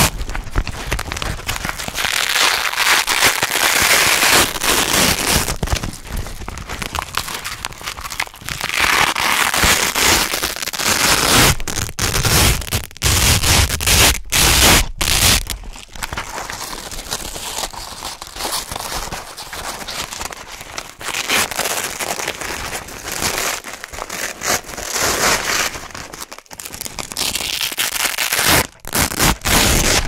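Hook-and-loop (Velcro) fastener being pulled apart by hand again and again: a crisp, crunchy crackling rip in strokes of a few seconds each, with brief breaks and a run of shorter, sharper pulls about halfway through.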